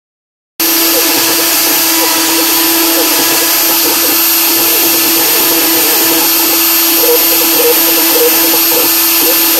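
CNC milling machine's spindle running with a fine engraving bit cutting into aluminium: a steady whine with cutting noise, starting abruptly about half a second in.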